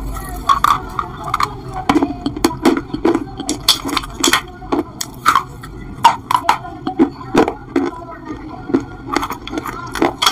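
A person chewing pieces of baked clay pot close to the microphone: a steady run of sharp, irregular crunches.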